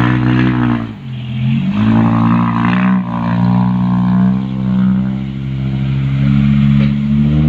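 Dump truck's diesel engine running loud under throttle. Its pitch drops about a second in, then rises again and holds steady.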